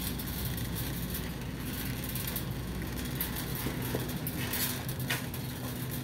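Wire shopping cart rolling across a hard store floor: a steady low rumble from the wheels, with a couple of sharp rattling clicks about four and a half and five seconds in.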